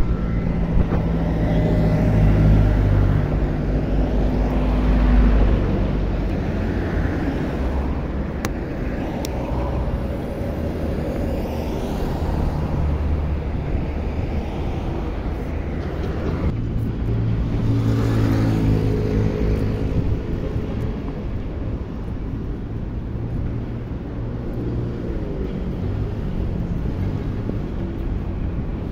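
City street traffic: motor vehicles passing close by, their engines swelling and fading, loudest about five seconds in and again around eighteen seconds, over a steady low rumble of road noise.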